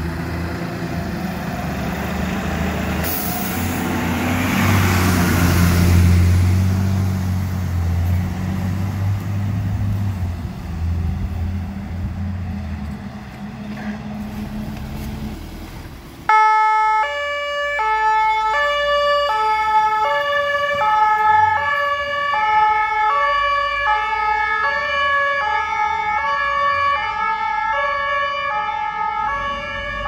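A fire engine's diesel engine running as it pulls out, with a loud hiss swelling about four seconds in. About halfway through it cuts to a German two-tone emergency siren (Martinshorn) alternating between two pitches about every 0.7 s.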